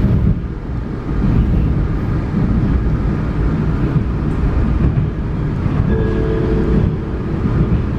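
Vienna U1 U-Bahn train running along the track, heard from inside the carriage: a steady low rumble of wheels on rails, with a brief whine of several tones about six seconds in.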